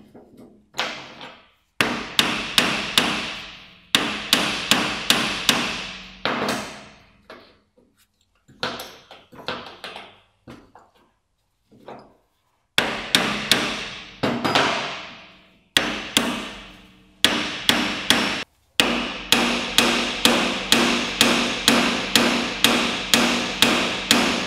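Hammer blows on the steel steering knuckle of a Peugeot Partner, driving the front strut down into the knuckle clamp until it is fully seated. The blows come in several runs of quick strikes, a few a second, with short pauses between runs, and each blow rings on briefly.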